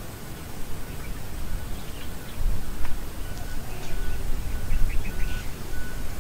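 Small birds chirping in short calls over a low, uneven rumble.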